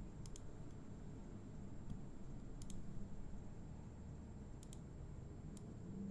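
A computer mouse clicking: three quick pairs of clicks and one single click, over a low steady room hum.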